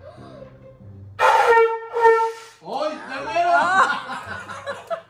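Horn-like tone blown from something held at the mouth: two loud steady blasts, then a wavering, squealing pitch that bends up and down for about two seconds.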